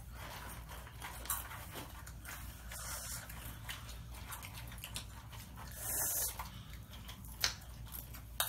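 Several people crunching and chewing Flamin' Hot Cheetos and Takis, in scattered short crunches with a louder crackle about six seconds in. A steady low hum runs underneath.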